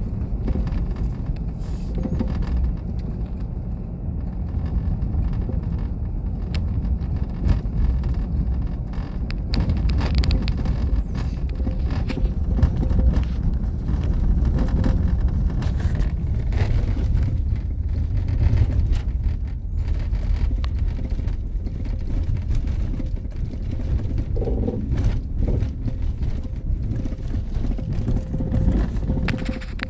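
Road noise inside a van driving over a bumpy sand-covered road: a steady low rumble from the tyres and body, with many small knocks and jolts from the bumps.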